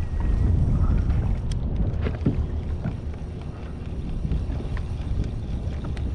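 Wind rumbling on the microphone, with water lapping against a kayak's hull and a few scattered light ticks.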